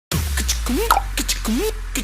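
Looping electronic beat: sharp clicks and ticks with a swooping tone that rises and falls, the pattern repeating a little faster than once a second over a steady low hum.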